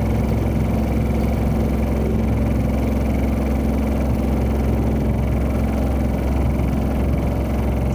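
Honda Odyssey Hybrid (RC4) on the road, a steady low rumble and drone with a constant hum, the vibration and abnormal noise of the front-end shimmy that has returned despite new front suspension parts and new tyres.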